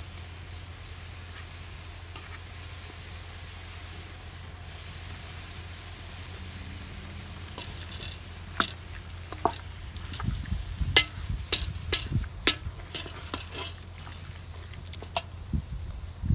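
Wooden spoon stirring chopped meat and vegetables in a cast-iron cauldron over a wood fire, the food sizzling. From about eight seconds in, the spoon clacks and knocks against the pot and the food several times, over a steady low hum.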